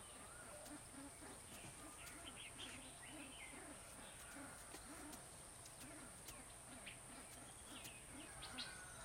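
Faint chirps and short calls of small birds, over a steady high-pitched drone and a soft low pulse repeating about twice a second.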